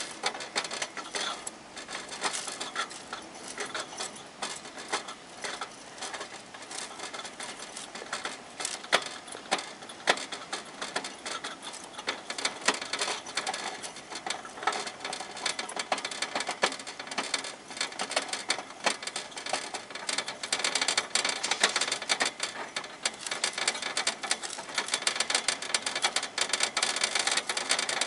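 Hamster gnawing on and climbing the metal wire bars of its cage: rapid, irregular metallic clicking and rattling that grows louder and denser about two-thirds of the way in.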